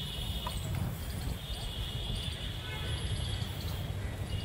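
Open-air ambience: wind buffeting the microphone as a low rumble, with an insect's high, steady chirring that breaks off about half a second in and comes back after about a second.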